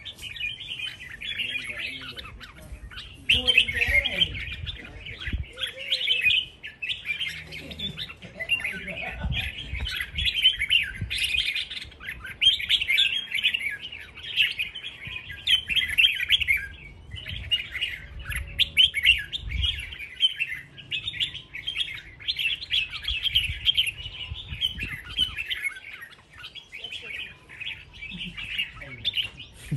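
Caged red-whiskered bulbuls singing against each other in a song duel: dense, rapid chirping phrases that run almost without a break, pausing briefly about 17 seconds and 26 seconds in.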